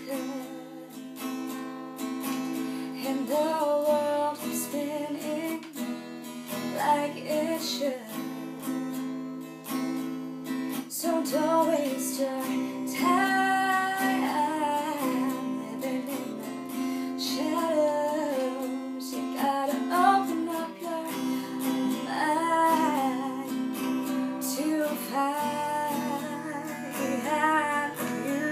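Acoustic guitar strummed steadily while a woman sings a melody over it in phrases.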